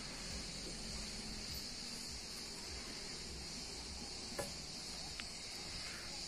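Cicadas buzzing in the trees in chorus: a steady, unbroken high-pitched drone.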